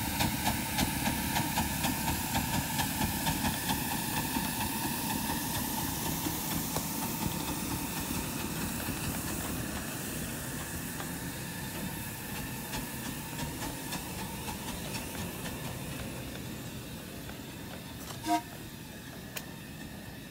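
Oil-fired live-steam ten-wheeler (4-6-0) locomotive working past with its freight cars. A steady hiss of steam rides over a regular beat of about two to three a second, and both grow fainter as the train moves on. There is one sharp knock near the end.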